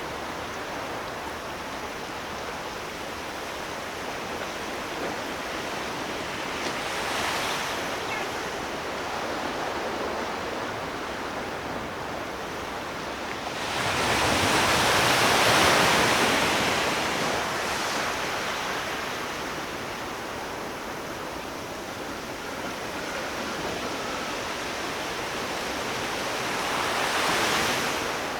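Ocean surf: a steady wash of waves with swells that build and recede, the biggest about halfway through and smaller ones about a quarter in and near the end.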